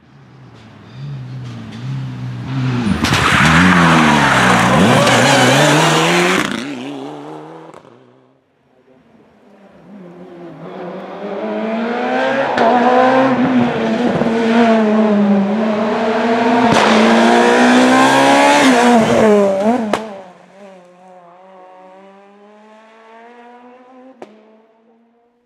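Two rally cars passing at speed on a stage, one after the other: the first sweeps past loudly about three to six seconds in, then the second approaches with its engine revving through gear changes and stays loud until it stops suddenly about twenty seconds in. Near the end a fainter engine is heard accelerating, its pitch rising.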